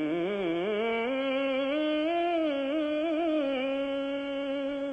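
One voice singing a long, drawn-out melodic phrase without clear words, holding notes with small wavering ornaments, in the sung style of a Telugu verse recitation.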